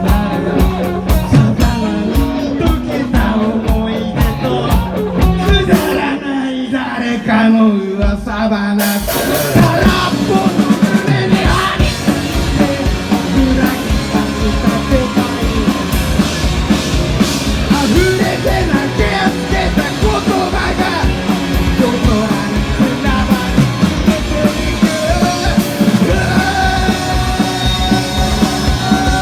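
Rock band playing a song with a sung vocal line over a drum kit. About nine seconds in, the full band comes in harder.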